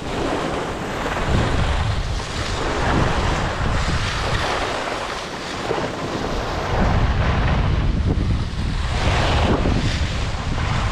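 Wind rushing over the microphone of a camera worn by a moving skier, with the hiss and scrape of skis sliding and carving on groomed snow, swelling and fading with each turn.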